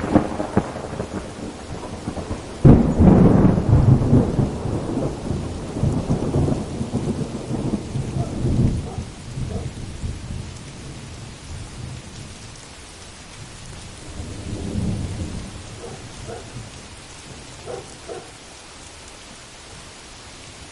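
Heavy thunderstorm: steady heavy rain, with a sharp thunderclap a few seconds in that rolls into a long rumble and dies away, and a softer roll of thunder later on.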